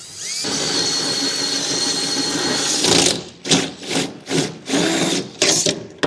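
Cordless drill spinning a 2-1/4-inch hole saw through a truck bed's spray-in bedliner and sheet metal. It runs steadily for about three seconds, then in a string of short bursts.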